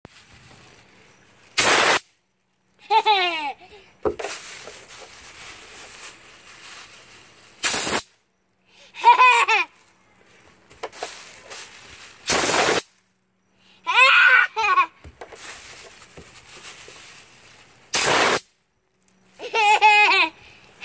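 Four short blasts of compressed air from a blow-gun nozzle on a coiled air-compressor hose, each about half a second long and a few seconds apart. Each blast is followed by a young child's laughter.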